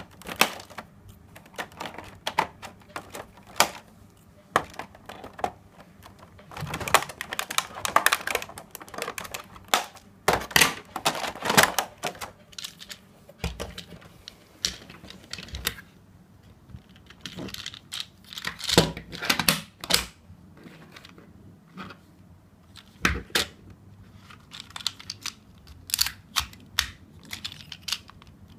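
Irregular hard plastic clicks, snaps and crackles as a plastic Transformers Bumblebee figure is worked out of its clear plastic blister tray and handled, with the tray crinkling; the clicking comes in dense clusters in the middle.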